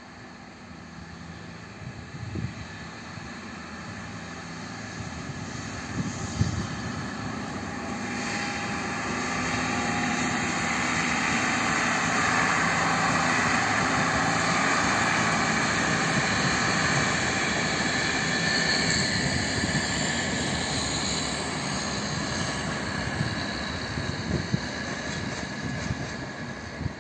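SKPL's SN84 diesel multiple unit departing and running past, its engine droning under the rumble of the wheels on the rails. It grows louder over the first ten seconds or so, is loudest as the train goes by in the middle, and fades a little as it pulls away.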